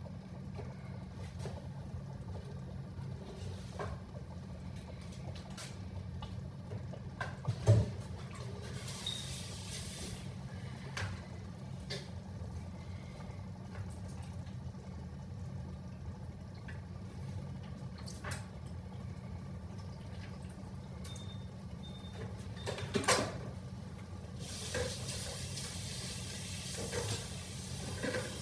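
Kitchen cooking sounds: a steady low hum under a few sharp knocks and clinks of cookware, the loudest about eight seconds in, with two stretches of hissing, the longer one near the end.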